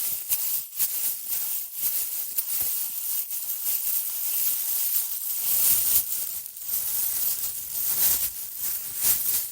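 Plastic bag crinkling and rustling as it is handled, a dense run of sharp crackles with short louder bursts.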